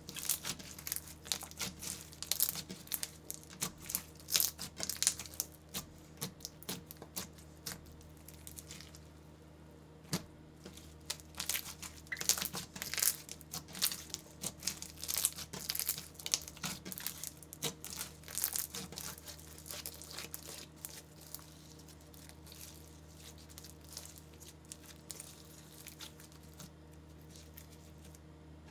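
Slime being worked by hand, pulled and pressed so that it crackles with dense runs of small sharp pops. There is a short lull about nine seconds in, and the crackling thins out over the last several seconds, over a faint steady hum.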